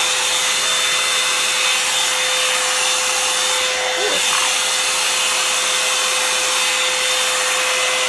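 Revlon Salon hair dryer brush running steadily on its high setting: a continuous rush of air with a constant motor whine.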